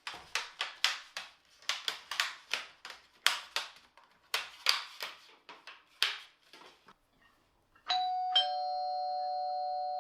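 A run of sharp clicks or taps, a few a second, then about eight seconds in a two-note doorbell chime, ding then dong, ringing on.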